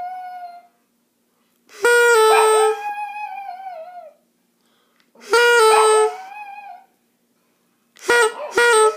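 Poodle howling along to a repeated musical note: three times a steady note sounds for under a second and the dog answers with a wavering howl that falls in pitch. Near the end the note comes twice in quick succession before the dog starts to howl again.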